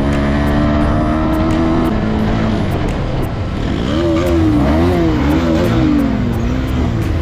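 Motorcycle engine under way, holding steady revs that climb slowly at first, then revving up and dropping back several times in quick succession around the middle.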